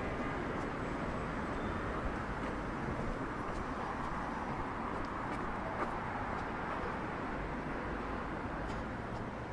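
Steady noise of city street traffic: a continuous wash of passing cars, with no single event standing out.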